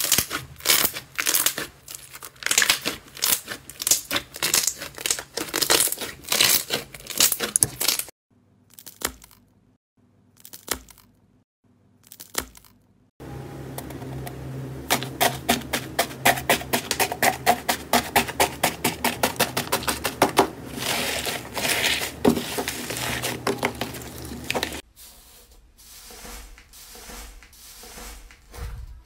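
Slime being squeezed and pressed by hand, giving dense runs of sticky clicks and crackles. The sound comes in several short cuts, with quieter, sparser handling between the loud stretches.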